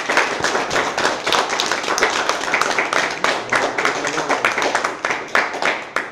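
Audience applauding: many hands clapping densely throughout.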